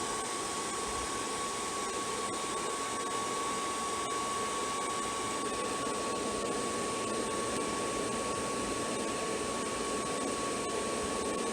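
Hair dryer used as a forge blower, running steadily: a rush of air with a steady high whine from its motor.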